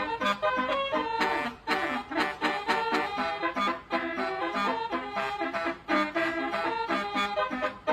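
Basuri multi-tone horn playing a melody with a reedy, horn-like tone, in short rhythmic notes that step up and down in pitch.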